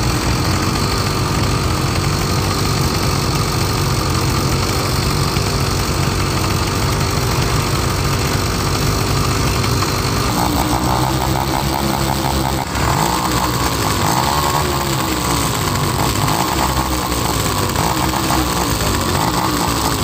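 Small motor engines idling close by. From about halfway through, engine pitch rises and falls as the machines rev.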